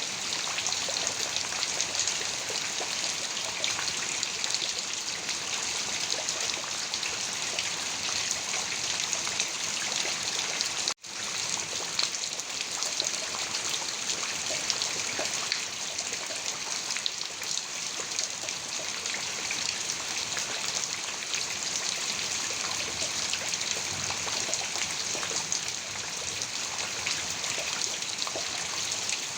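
Heavy rain falling steadily, a dense hiss of many small drops pattering. The sound cuts out for an instant about eleven seconds in, then resumes unchanged.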